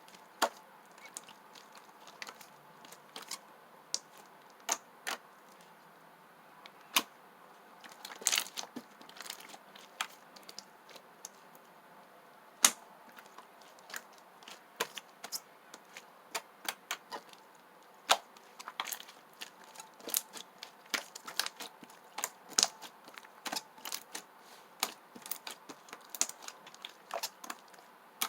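Slime being pressed and worked by hand, giving irregular sharp clicks and pops, sparse at first and coming several a second in the second half.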